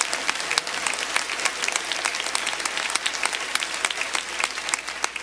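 Church congregation applauding, a dense patter of many hands clapping that begins to thin out near the end.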